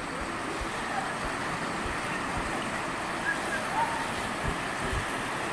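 Steady rushing of a mountain stream, with two faint, short high calls a little past the middle.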